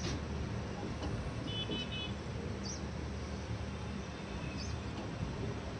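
Passenger train running steadily along the line, heard from an open coach door: a constant low rumble of the moving coaches. A short high-pitched tone comes about a second and a half in.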